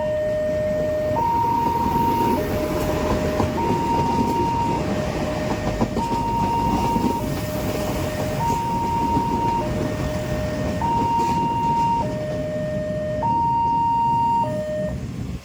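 Railway level-crossing warning alarm sounding a steady two-tone signal that switches between a low and a high note about every 1.2 seconds, over the rumble of a train passing.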